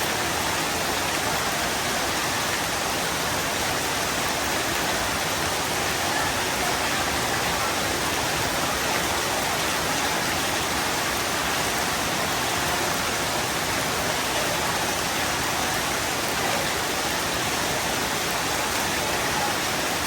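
Heavy rain pouring down in a steady, even hiss, with no thunder or single drops standing out.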